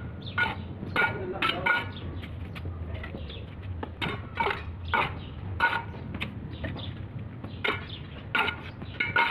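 Steel bricklaying trowel tapping hollow red clay bricks as they are bedded in mortar: about a dozen sharp ringing clinks at irregular intervals, over a low steady hum.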